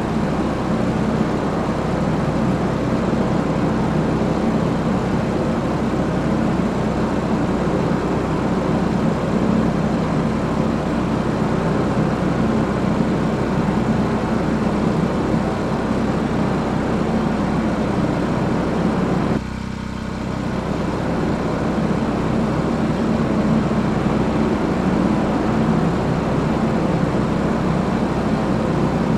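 Small portable gas generator (Sportsman 1000 watt) running steadily with a low engine hum. Its sound drops suddenly about two-thirds of the way through and climbs back over a couple of seconds.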